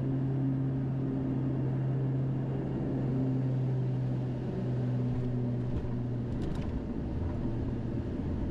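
Twin PT6A turboprop engines of a Beechcraft King Air 200, heard in the cockpit as a steady low drone during the landing. The hum changes pitch and eases about five seconds in.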